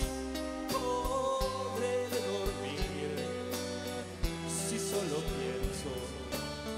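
Live band playing an instrumental passage of a slow ballad: a wavering melody line over held chords, with bass and drum hits.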